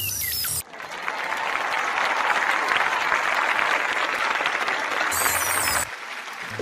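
An audience applauding, right after a short electronic music sting ends. The same music sting comes back briefly near the end.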